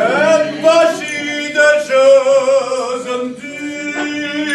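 A man singing in a full voice to a room of diners, holding long notes.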